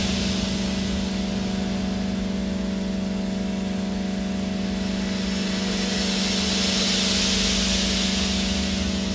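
Ambient drone music: a steady low hum with a stack of sustained overtones, under a wash of hiss that thins out at first and swells again near the end.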